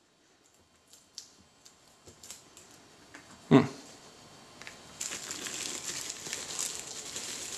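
Bubble wrap and plastic packaging crinkling as they are unwrapped by hand: a few light clicks at first, one louder crackle about three and a half seconds in, then steady crinkling from about five seconds.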